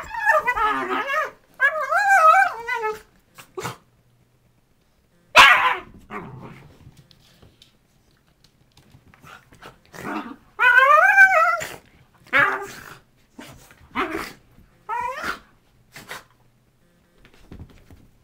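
Dogs play-fighting, with bursts of growls, whining grumbles and yappy barks, one sharp bark about five seconds in, and a quieter stretch in the middle.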